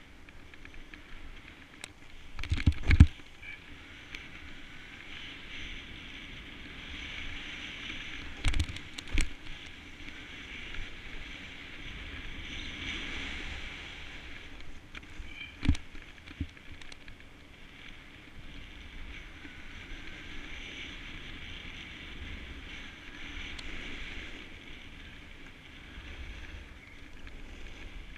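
Snowboard sliding and scraping over packed snow: a steady hiss that swells and fades with the turns. A few sharp knocks break in, the loudest about three seconds in.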